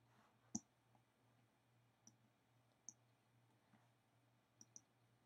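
Near silence: faint room tone with a few small clicks, the clearest about half a second in and softer ones scattered later.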